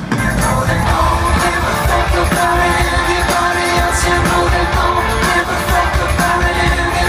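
A rock band playing live through a large PA, loud and steady, with voices singing over the music.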